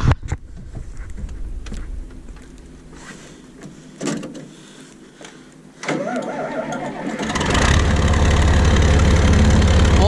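A few quiet knocks and a thump, then about six seconds in the tractor engine is cranked and catches, running loud and steady from about seven and a half seconds with a deep low rumble.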